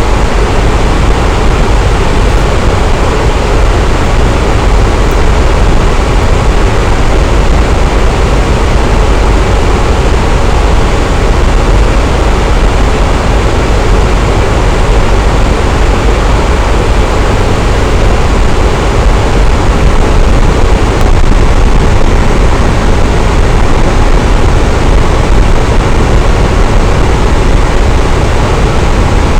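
Electric fan running steadily: an even, loud whooshing rush with a low hum underneath.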